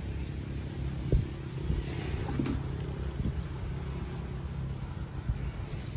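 A motor running steadily with a low hum, with a single sharp knock about a second in.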